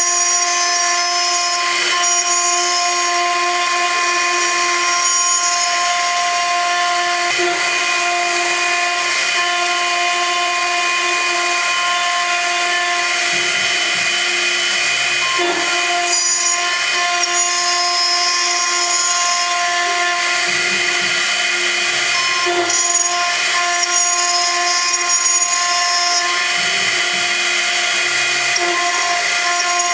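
CNC gantry milling machine's high-frequency spindle cutting aluminium with an end mill: a steady whine over cutting hiss, with brief changes in tone as the tool path turns.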